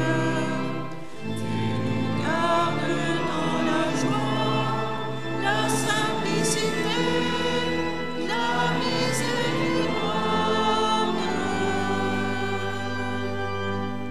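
Congregation singing a short chant together over held low accompaniment notes; the music stops right at the end.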